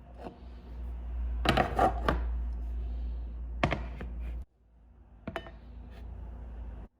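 Dishes and utensils clinking and knocking, a few sharp clinks over a low steady hum that cuts off partway through.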